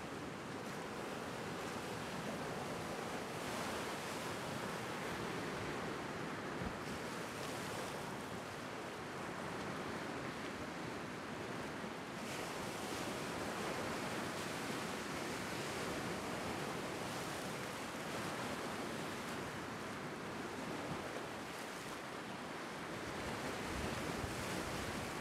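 Lake Superior waves washing and breaking over flat rock ledges at the shoreline: a steady surf wash that rises and falls slowly.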